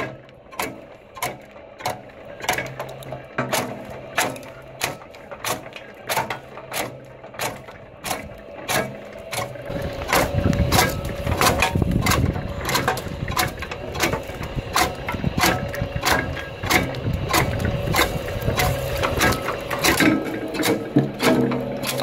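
Old cast-iron wood chopper with spiked feed rollers and a flywheel, running and cutting sticks: a steady series of sharp clicks, about two a second. A low rumbling noise joins under the clicks from about halfway and drops away near the end.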